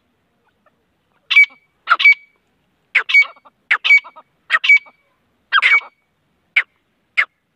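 Grey francolin calling: a rapid series of loud, shrill call notes starting about a second in, some in close pairs, roughly one a second.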